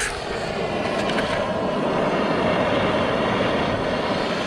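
Handheld propane torch lighting with a click and then burning with a steady roar. It is being used to shrink heat-shrink tubing onto a heavy battery cable.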